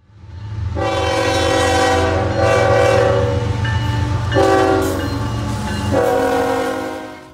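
Locomotive air horn sounding a chord in several long blasts over a low rumble. It fades in at the start and fades out at the end.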